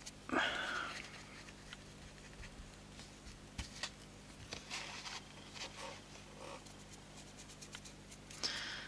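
A cheap paintbrush dry-brushing a small terrain stone and being dabbed off on a palette: faint scratchy brush strokes. A short, louder noise comes about half a second in.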